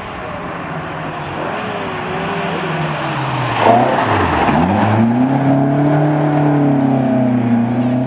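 Classic Mini rally car passing close on a gravel stage. The engine note falls and dips sharply about halfway as the car goes by, with a burst of gravel noise. It then climbs back and holds as the car accelerates away.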